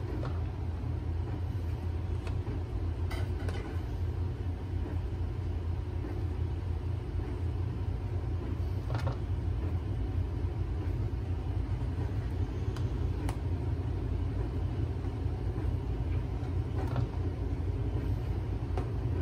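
Split peas boiling hard in a large aluminium pot on a gas stove: a steady low rumble, with a few faint light clicks as a metal spoon skims off the froth.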